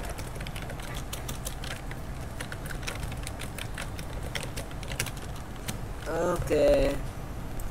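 Light, irregular small clicks and taps all through, like quick strokes and taps on a desk. About six seconds in, a person's voice makes a short wavering sound lasting under a second, the loudest thing here.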